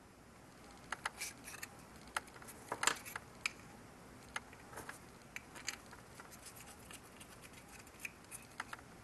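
Faint, irregular clicks and taps of small plastic support pillars being pushed into the mounting holes of a circuit board and the board being handled, loudest about three seconds in.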